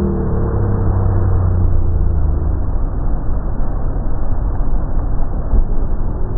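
Boat engine running with a low drone that fades out about two and a half seconds in, under a steady rush of churning wake water and wind.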